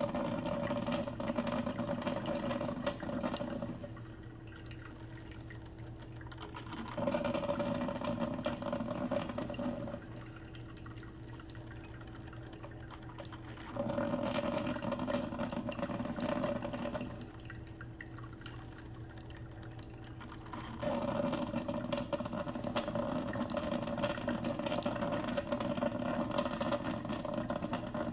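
Mr. Coffee 12-cup drip coffee maker brewing: heated water bubbling through in four spells of a few seconds each, quieter between, over a steady low hum.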